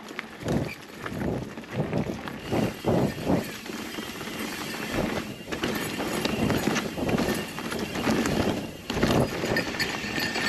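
Specialized Epic Evo full-suspension mountain bike ridden along a dirt trail: tyres rolling over dirt and leaf litter, with irregular knocks and rattles from the bike over bumps.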